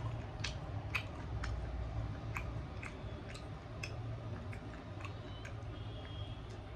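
A person chewing chicken and roti close to the microphone, with irregular wet mouth clicks and smacks about one or two a second over a steady low hum.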